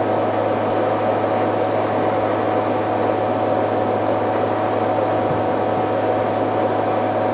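A steady low hum with a thin higher tone and an even hiss over it, unchanging, with no distinct splashes or calls standing out.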